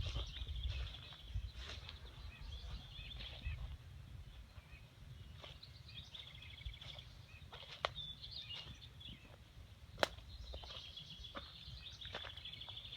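Small songbirds chirping and twittering, over a low rumble that is heaviest in the first few seconds. Two sharp clicks stand out, about eight and ten seconds in.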